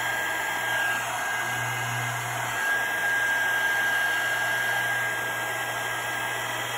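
Hand-held craft heat tool blowing steadily, its hot air played over wet epoxy to make the white ink run and break up.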